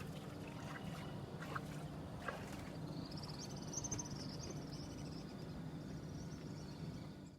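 Faint outdoor ambience: a low steady rumble with a few light clicks, and a high, finely pulsing buzz from about three seconds in until near the end.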